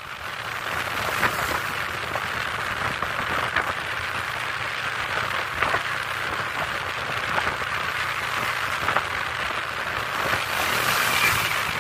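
Steady, rain-like hiss with scattered faint crackles, fading in at the start.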